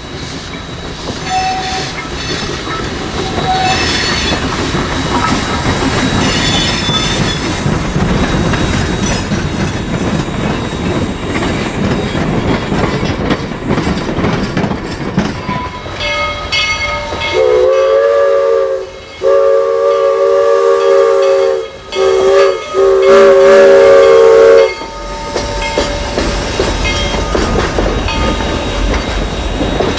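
Steam train of empty log flatcars rolling past, the wheels clacking over the rail joints. About 17 seconds in, the steam locomotive's whistle sounds several notes at once in four blasts, long, long, short, long: the grade-crossing signal.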